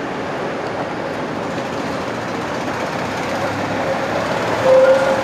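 Street traffic noise with a tram running, steady throughout, and a brief pitched tone near the end that is the loudest moment.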